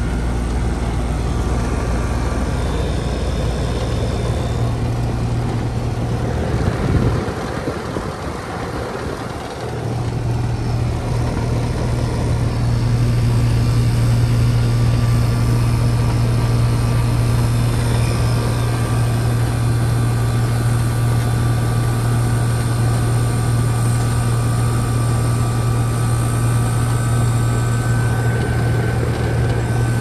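1985 Ruud central air conditioner's outdoor unit running: the Tecumseh compressor hums steadily under the whir of the condenser fan. About seven seconds in the hum dips for a few seconds, then comes back louder and holds steady.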